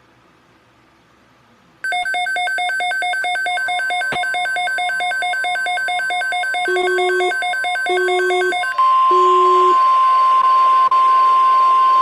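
Emergency Alert System weather radio alert opening: after faint static hiss, a loud burst of buzzing digital data tones (the SAME header) starts about two seconds in. Three short low beeps sound over its end, and then a steady high alert tone (the 1050 Hz weather radio warning alarm) holds for about three seconds.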